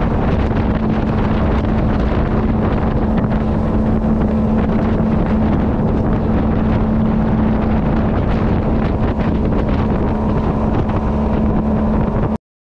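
Outboard motor of a small fishing boat running at steady cruising speed, a constant drone, with wind buffeting the microphone. It cuts off abruptly near the end.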